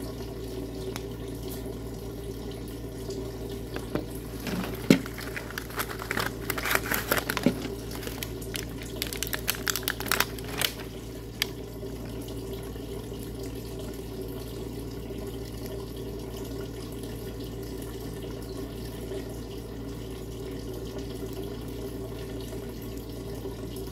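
Plastic packaging crinkling and clicking as small items are unwrapped and handled, in a cluster of sharp crackles from about four to twelve seconds in. A steady low hum runs underneath throughout.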